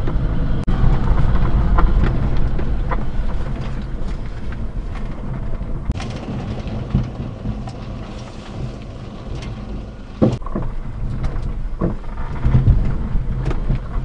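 Inside the cab of a 1992 Daihatsu Hijet mini-truck driving slowly over loose gravel: the carburetted 660cc three-cylinder engine running under a steady rumble of tyres on stones, with scattered clicks and knocks as the cab jolts, the sharpest about ten seconds in.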